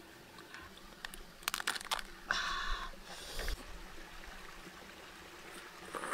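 Cooked river crab being cracked and pulled apart by hand: a quick run of sharp cracks of shell about a second and a half in, then a couple of short crunching noises.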